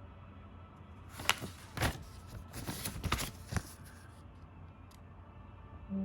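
Hands handling toy packaging: a cluster of rustles and sharp clicks between about one and four seconds in, over faint room hiss.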